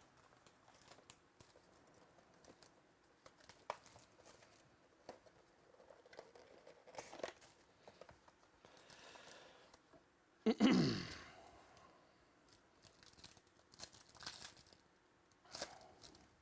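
Packaging of a trading card box being torn open, with crinkling plastic and small clicks from handling, and one louder rip about ten seconds in.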